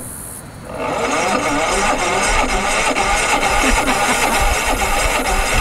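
Electric starter of a Yamaha EF3000iSEB inverter generator trying to crank on a dying starter battery: a steady, rough, rapid rattle that starts about a second in and carries on without the engine catching.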